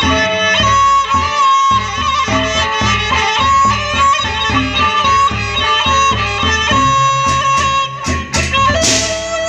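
Gendang beleq ensemble playing: a suling bamboo flute holds a sustained melody over the two large gendang beleq drums beaten with sticks in a steady rhythm. Hand cymbals clash several times near the end.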